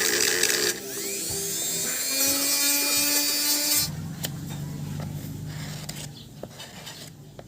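A small electric motor whirring at high speed, its sound dropping and shifting in pitch under a second in, then turning to a lower hum with scattered clicks that fades away over the last few seconds.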